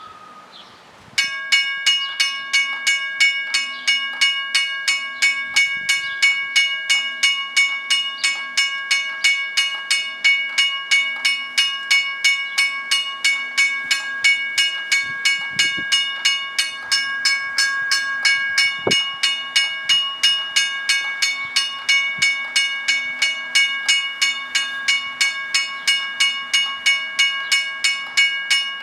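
Railroad crossing bell ringing continuously, about three strokes a second, each stroke leaving a ringing metallic tone. It starts about a second in.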